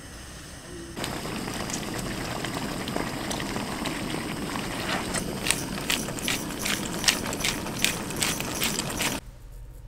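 Food sizzling in a hot pan, starting about a second in, with sharp pops and crackles that grow denser in the second half; it cuts off suddenly near the end.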